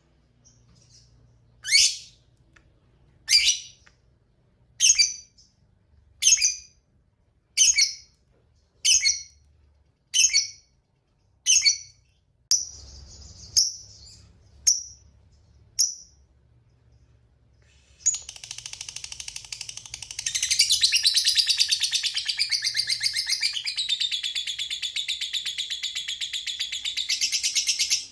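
A lovebird calling. It gives about eleven sharp, high chirps, evenly spaced about a second and a half apart, then after a short pause breaks into a long, rapid chattering trill of about ten seconds. This long trill is the 'ngekek panjang' prized in fighter lovebirds.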